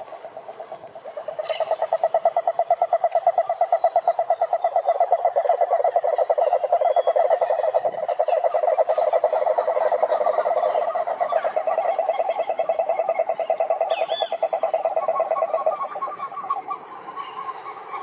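Cururu toad calling: one long, fast pulsed trill that starts about a second in and stops near the end. A fainter trill from another toad carries on behind it.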